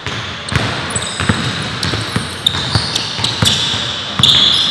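Basketball game play: a ball bouncing and players' feet thudding on the court, with sharp, irregular knocks. Sneakers squeak in the second half, the loudest a long squeal near the end.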